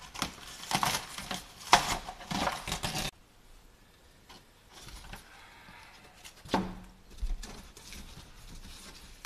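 Old lauan plywood and foam being pried up and torn off a motorhome roof: repeated scraping and tearing for about three seconds. Then a sudden drop to quieter rustling of insulation being pulled out, with one sharp knock about six and a half seconds in.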